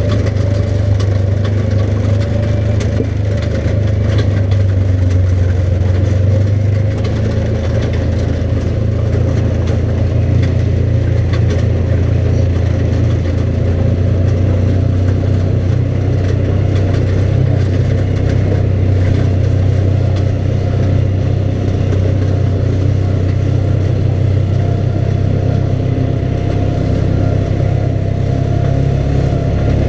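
ATV engine running at a steady pace while the quad travels along a dirt road, a continuous drone with no breaks.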